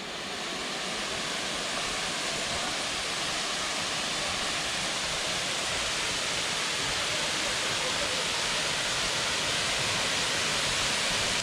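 Small waterfall: a steady rush of falling water that grows a little louder over the first two seconds, then holds.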